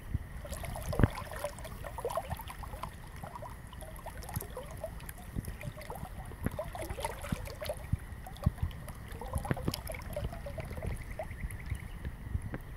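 Shallow river water gurgling and trickling over a riffle, with a continuous low rumble and scattered sharp clicks, one sharper click about a second in.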